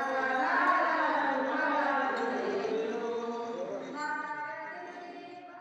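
Women singing a devotional bhajan together, the sound gradually fading out toward the end.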